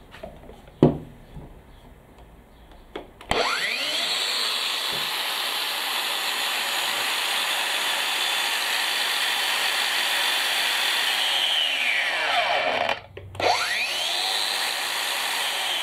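Makita XAG12 36-volt 7-inch cordless angle grinder run free with a wheel fitted. After a single handling knock, the motor spins up with a rising whine, runs steadily for about eight seconds, then winds down quickly on its electric brake. It starts again about a second later and begins winding down once more near the end.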